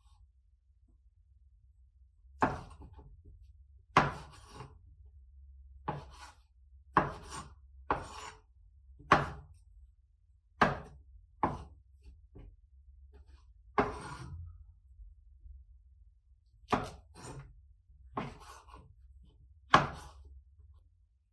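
Kitchen knife cutting food on a wooden cutting board: about a dozen separate, unhurried chops, each a sharp knock of blade on board, spaced irregularly about one to two seconds apart.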